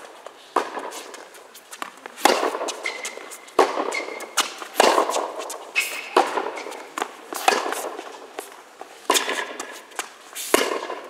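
Tennis rally on an indoor hard court: sharp racket strikes and ball bounces about every second, each echoing briefly in the hall. A few short high squeaks come from the players' shoes on the court surface.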